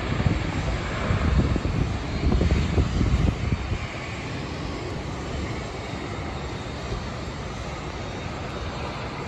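Distant jet engine noise from an Airbus A320-232 with IAE V2500 turbofans rolling along the runway: a heavy, uneven rumble for the first few seconds that then settles into a steadier, quieter roar.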